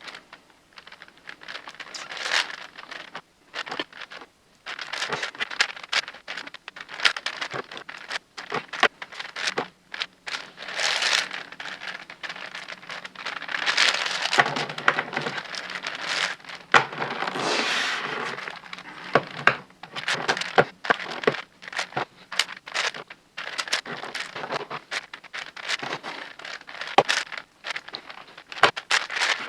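Plastic layers of a 10x10x10 Rubik's cube being turned by hand: quick clicks and rasping slides in irregular bursts with short pauses, as the centre pieces are solved.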